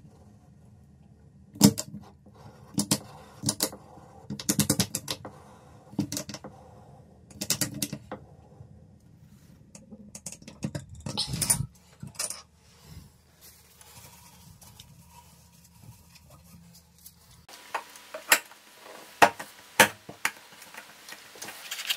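Ratcheting metal clicks in short bursts as a screwdriver turns a flat bar wrench inside an Oatey brass shower drain flange, tightening the drain. Near the end come a few single sharp clicks as the round stainless steel strainer cover is snapped into the flange.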